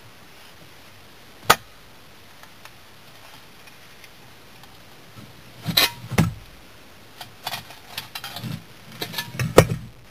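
Steel shovel blade clinking and scraping against refractory kiln slabs and gravel as the slabs are pried up. A single sharp clink about a second and a half in, a cluster of heavier knocks around six seconds, then a run of scrapes and knocks toward the end, the loudest just before it ends.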